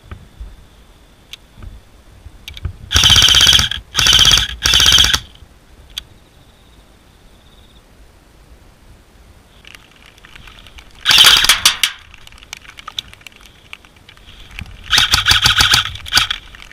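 Airsoft rifle firing bursts on full auto, the rapid shots running together: three short bursts close together, another a few seconds later, and a longer burst near the end.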